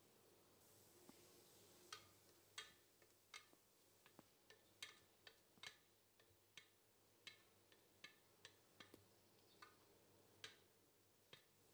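Wooden spoon stirring sliced onions in an aluminium pressure cooker, knocking faintly against the metal pot in irregular taps, about two a second, starting about two seconds in.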